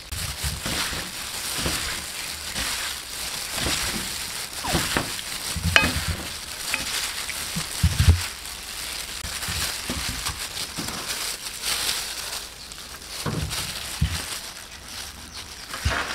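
Clear plastic food-prep gloves crinkling and rustling as hands toss and squeeze shredded chicken with sliced banana flower on a plate, with a few soft knocks.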